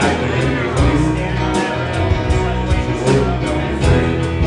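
Live band playing a country-rock song: acoustic guitar, electric bass and keyboard over a steady drum beat.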